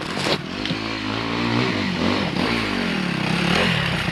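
Enduro dirt bike engine revving up and down repeatedly as it is ridden over rough ground, with a few knocks at the start.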